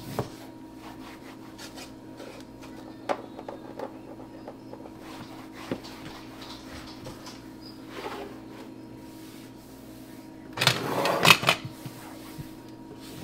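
A disinfecting wipe rubbed by hand over a kitchen wall and countertop, with a few light knocks and a louder burst of scrubbing about ten and a half seconds in. A faint steady hum sits underneath.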